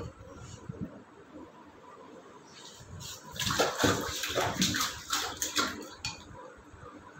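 Toddlers splashing and sloshing water in a stainless-steel kitchen sink, quiet at first, then a run of louder irregular splashes from about three to six seconds in.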